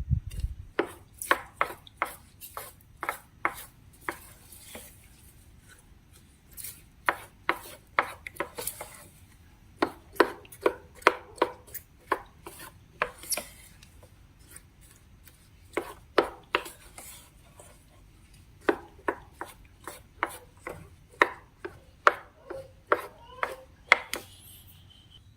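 Repeated sharp taps and clicks of a utensil striking a hard surface as slime is mixed or cut, in irregular runs of a few a second with short pauses between.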